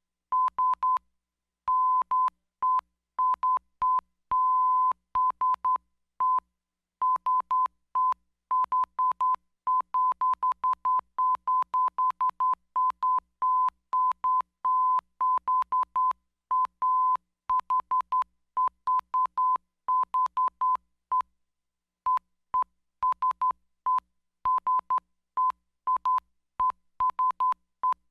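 Morse code sent as a single high-pitched beep keyed on and off in short dots and longer dashes at a quick, even pace, with brief pauses between groups, twice lasting about a second.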